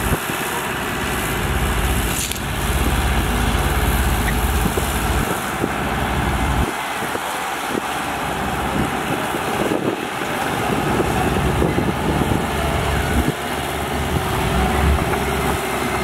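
Diesel engines of a Komatsu D58P and a Mitsubishi BD2G crawler bulldozer running steadily as the larger dozer tows the smaller one up out of the mud. The low rumble fades for a few seconds midway and then comes back.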